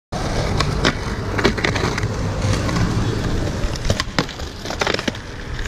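Skateboard wheels rolling and a truck grinding along a concrete ledge: a steady gritty rumble, broken by several sharp clacks of the board and trucks hitting the ledge and the ground, in bunches about a second in and again past four seconds.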